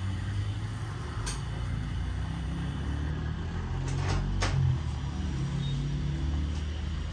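Low, steady rumble of street traffic, with a few sharp slaps or clicks: one about a second in and two close together about four seconds in.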